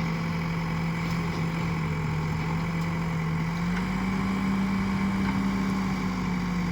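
Diesel engine of an Escorts Digmax backhoe loader running steadily near idle, its pitch rising slightly about four seconds in and easing back down near the end.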